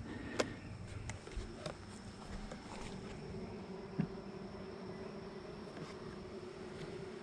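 Honeybees buzzing steadily around an opened hive, with a few sharp clicks in the first two seconds.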